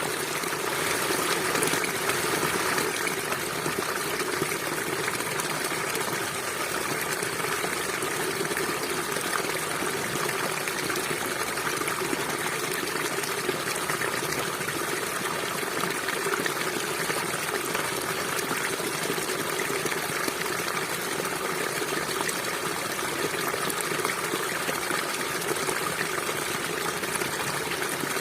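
River water flowing, a steady, unbroken rush of water.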